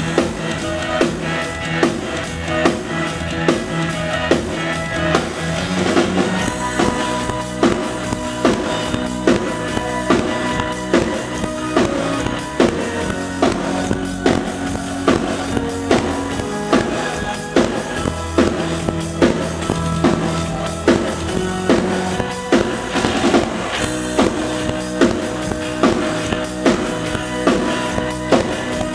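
A synth-pop band playing live on stage: a drum kit keeps a steady beat under bass and sustained keyboard synth lines.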